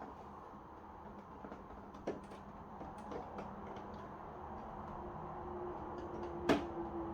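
Light clicks and taps of a blunt knife working around the edge of an LED TV's plastic back panel, with one louder, sharp click about six and a half seconds in.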